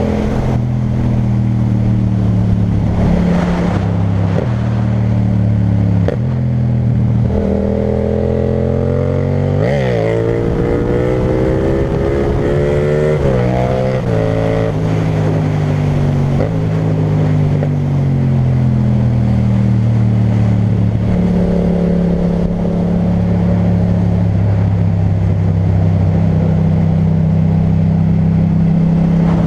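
Yamaha MT-07's 689 cc parallel-twin engine running through an Akrapovic titanium exhaust while riding. The engine note steps up and down with gear changes, climbs hard in a rising rev about a third of the way in, drops sharply on an upshift, pulls up again, and settles into steady cruising for the second half.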